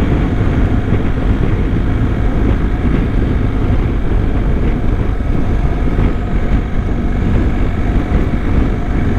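BMW R1250 boxer-twin motorcycle riding at speed, with a steady rush of storm wind over the microphone.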